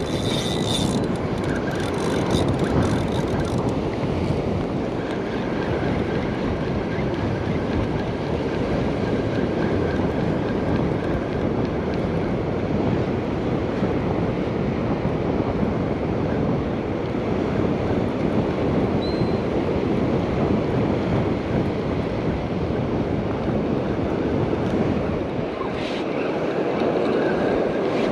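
Steady wash of ocean surf mixed with wind buffeting the microphone, an even rushing noise with no distinct events.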